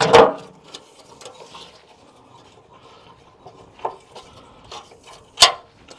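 Scraping and rubbing of hands and a tool working at a car's damaged front wing and its mounting bracket, with a loud knock at the start, a few small clicks and a sharp click near the end.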